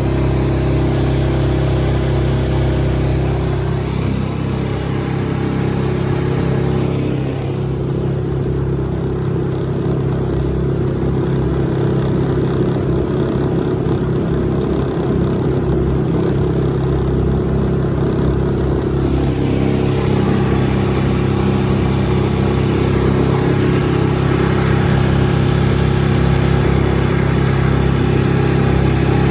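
Suzuki DF6A 6 hp single-cylinder four-stroke outboard running steadily under way at moderate part throttle. The motor is brand new and in its break-in period, held below full throttle.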